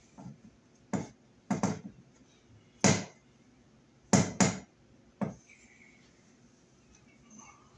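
About six sharp clicks and knocks at irregular intervals, from a hand tool and stiff wiring being handled at an electrical wall box while a thermostat is wired in.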